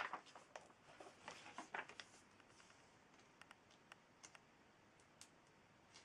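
Faint handling of a paper journal: a few soft page rustles and small clicks in the first two seconds, then only occasional faint ticks.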